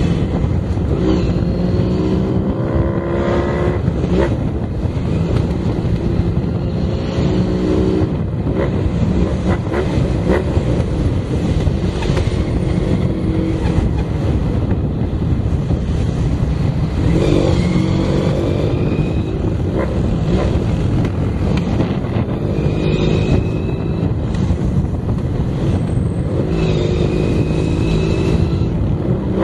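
Cafe racer motorcycle engine running under way, its pitch rising several times as the throttle is opened, over steady wind and road rush.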